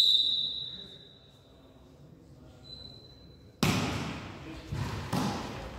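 Referee's whistle blast fading away with the hall's echo, then a second short whistle. About three and a half seconds in, a volleyball is struck hard on the serve, followed by more ball hits.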